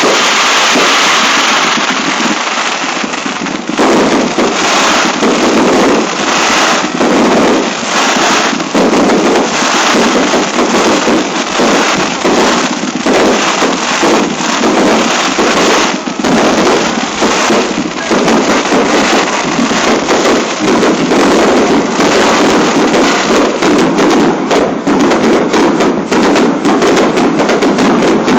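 Fireworks display: aerial shells bursting and crackling in quick, overlapping succession, a continuous crackle at first, then dense volleys of bangs that come faster toward the end.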